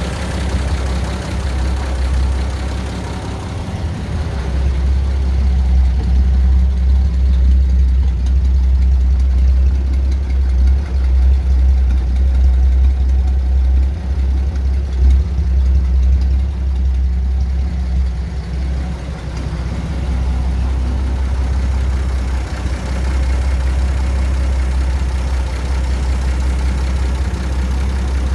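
1949 Dodge Power Wagon's flathead straight-six engine idling steadily shortly after a cold start.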